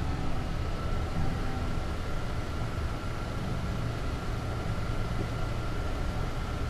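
Mercedes-Benz Citaro C2 LE city bus running steadily: an even low rumble with a thin, steady high tone over it.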